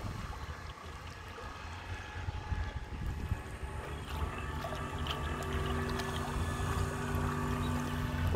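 Wind buffeting the microphone over open water, with a steady low hum from the radio-controlled model tug's motor setting in about halfway through as the boat draws nearer.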